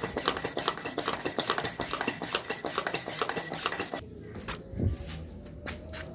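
Portable foot pump being worked to inflate a motorcycle tyre, a fast run of clicking and rattling that stops abruptly about four seconds in. A few separate clicks and a dull thump follow.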